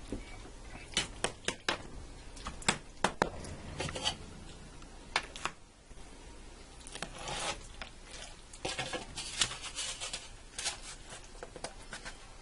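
A knife cutting through a baked macaroni casserole, clicking and scraping against the metal baking pan in a run of short strokes, then a portion scooped out and set on a plate.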